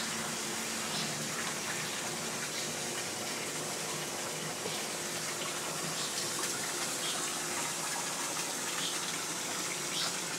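Water running steadily into a koi pond, a continuous even rush.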